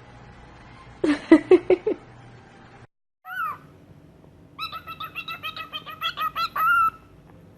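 Parrot calls: a short loud burst of wavering notes about a second in. After a brief break, a rising call and then a quick run of chirps, about five a second, ending on a longer note.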